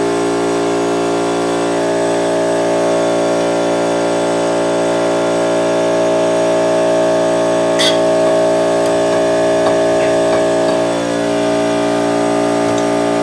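A power tool's motor running steadily with an even whine, then stopping near the end.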